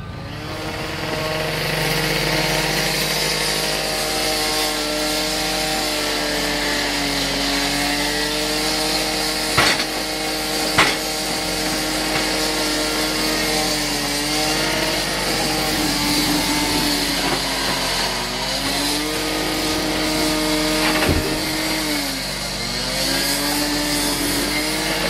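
An engine running fast and steady, its pitch sagging and recovering a few times, with a few sharp knocks about ten seconds in and again near the end.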